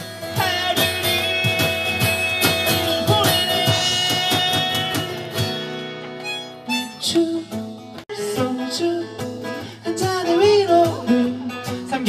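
Acoustic band music with strummed guitar and held notes, cut off abruptly about eight seconds in. After the break a voice sings over guitar.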